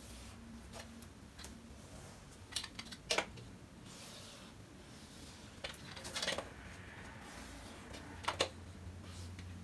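Whiteboard marker scratching and squeaking as it is drawn along a ruler, with several sharp taps of the ruler and marker set against the board. A low steady hum runs underneath.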